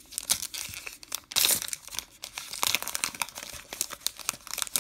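A Topps Gypsy Queen baseball card pack wrapper crinkling and tearing open in the hands, loudest about a second and a half in.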